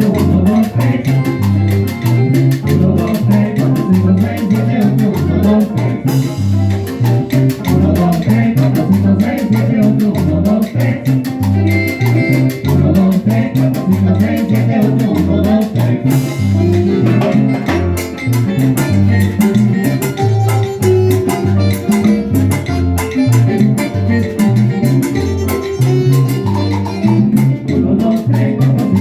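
Latin dance band playing an up-tempo salsa-style tropical dance tune, with a moving bass line and drum kit.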